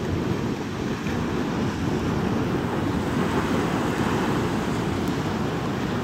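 Surf breaking and washing in over a rocky shore, a steady rushing noise, with wind rumbling on the microphone.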